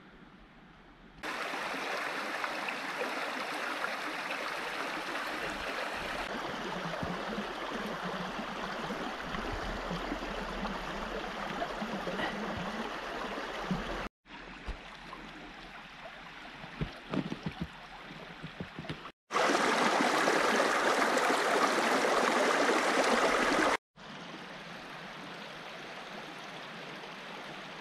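A small brook running and babbling steadily. It is faint at first and comes in loud about a second in, then cuts between short takes of different loudness, one quieter with a few low thumps.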